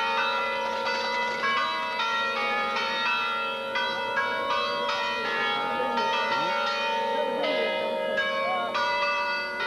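Church bells pealing: several bells struck one after another in an uneven sequence, their ringing tones overlapping and sustaining, with a fresh strike every half second or so. A crowd's voices are faint beneath the bells.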